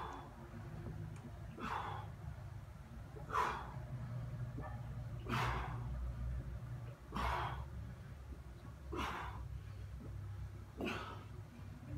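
A man's short, forceful exhalations, one with each sit-up, coming evenly about every two seconds.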